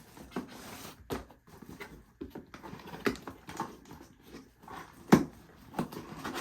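Irregular clicks and taps of objects and packaging being handled, with a sharp knock about five seconds in.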